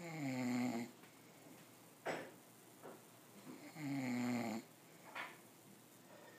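A man snoring in deep sleep: two long, rasping snores about four seconds apart, with a short, sharp snort between them.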